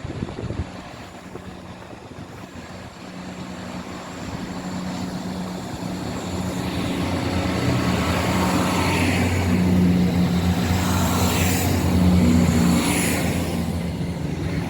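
Class 170 Turbostar diesel multiple unit's underfloor diesel engines under power as the train pulls out. A deep, steady engine drone grows louder from about four seconds in and stays loud toward the end.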